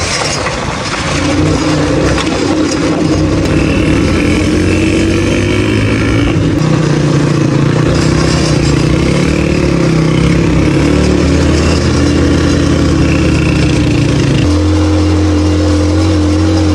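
Small motorcycle engine running steadily as it is ridden along the road, heard close from the rider's seat, its pitch shifting a few times, about a second in and again near the end.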